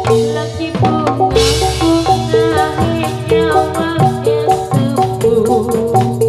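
Gamelan music for a jathilan dance: metal-keyed instruments play a repeating melody over kendang drum strokes. About a second in, a crash sounds with a deep low boom under it.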